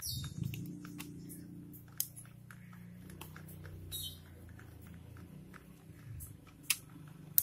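Screwdriver turning out the lower float-bowl screws on a Suzuki TS125 carburetor: scattered light metallic clicks and scrapes, over a low steady hum.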